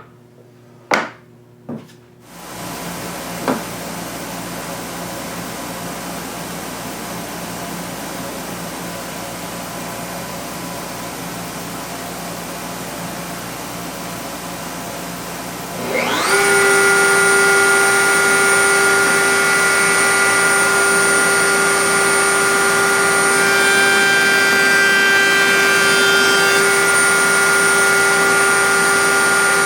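A couple of knocks, then a steady rushing noise starts about two seconds in. About sixteen seconds in, the router motor of a horizontal router table spins up with a quickly rising whine and then runs steadily at full speed.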